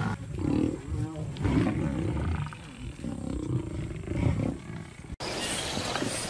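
A lion roaring and growling while a herd of Cape buffalo attacks it, in repeated calls that rise and fall in pitch. About five seconds in, the sound cuts abruptly to a different recording: a steady hiss with low thuds.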